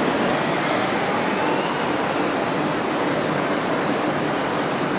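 Steady rushing background noise of a railway station hall, with no distinct knocks or voices standing out.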